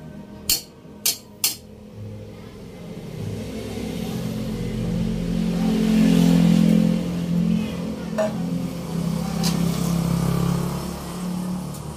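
Three sharp metal clinks of a steel spatula or container against a wok in the first second and a half, then a motor vehicle's engine passing by: a low rumble that builds to a peak about halfway through and fades away near the end.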